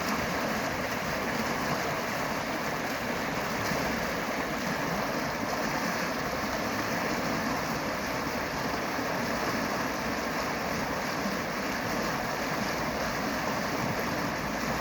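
Steady rushing water, an even, unbroken noise with no separate splashes or other events.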